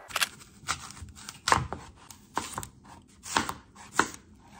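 Knife slicing a raw apple into wedges on a cutting board: about seven sharp cuts, unevenly spaced.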